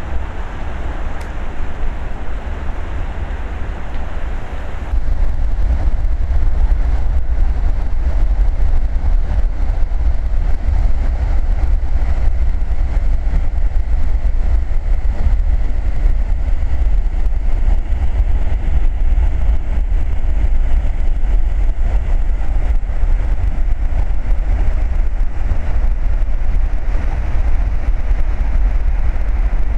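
Floodwater rushing with a steady, loud noise and a heavy low rumble, partly wind buffeting the microphone. It gets louder about five seconds in.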